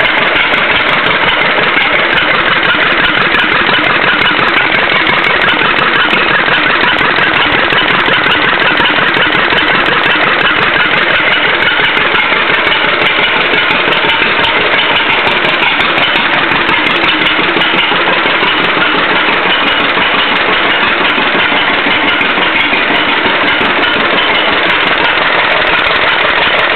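John Deere LUC two-cylinder engine running steadily, loud and unmuffled, with no muffler fitted.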